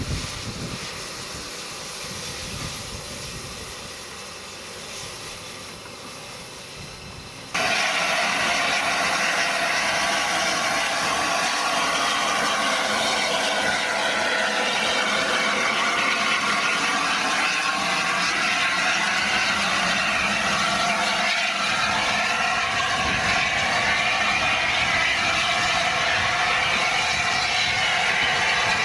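LNER A4 Pacific steam locomotive 60007 hissing steam. A softer hiss gives way abruptly, about seven seconds in, to a loud steady hiss that lasts to the end.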